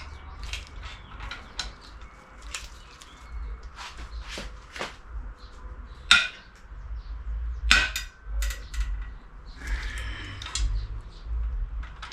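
Irregular metallic clicks and knocks of hand tools on the cylinder head bolts of a Mazda 3 MPS engine as they are worked loose. Two sharper, louder cracks come about six and about eight seconds in, over a low steady hum.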